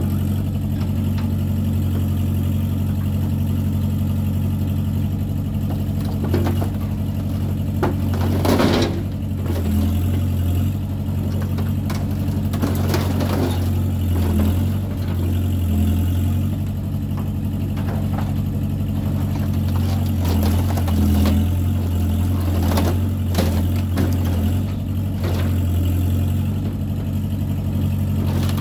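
Samsung mini excavator's diesel engine running under hydraulic load, its note swelling and dipping as the boom and bucket work. Several sharp crunches of the burned-out Ford Bronco's metal body as the bucket crushes it.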